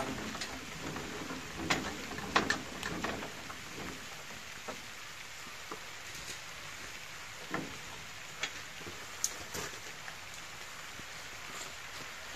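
Steady hiss of light rain, with scattered irregular clicks and knocks, the loudest between about one and three seconds in.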